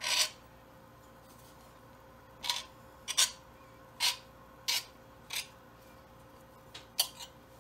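Knife trimming pie dough against the rim of a cast-iron pie pan. One short scrape comes at the very start, then a quiet spell, then about six short scraping strokes spaced under a second apart from about two and a half seconds in.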